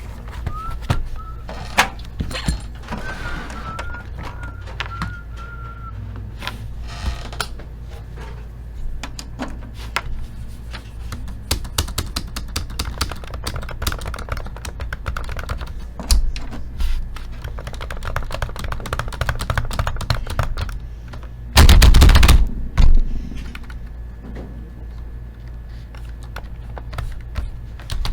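Rapid typing and clicking on a computer keyboard, over a steady low hum, with a loud bump about 22 seconds in.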